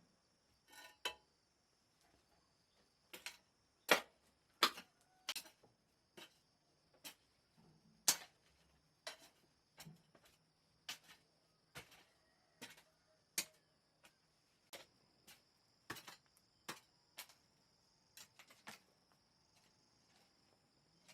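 Repeated sharp knocks, about one every three-quarters of a second, over a faint steady high whine.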